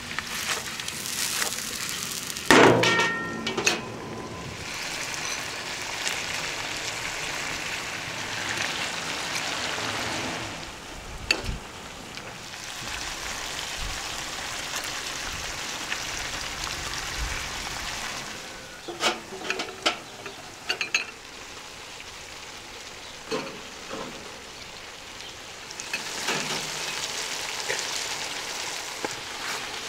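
Lamb and chestnuts frying in a wide pan with a steady sizzle. A utensil knocks and scrapes against the pan now and then while the food is stirred, the loudest about three seconds in and a cluster about two-thirds of the way through.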